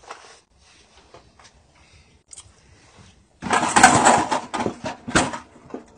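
Knife scraping and jabbing at an aluminium beer can to punch a hole in it. Light clicks at first, then a loud rough scraping about three and a half seconds in that lasts nearly two seconds and ends in a few sharp strokes.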